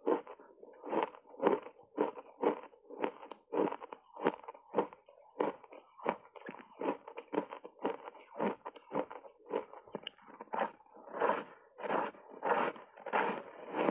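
Block ice coated in matcha and milk powder being chewed, a steady run of crunches at about two a second.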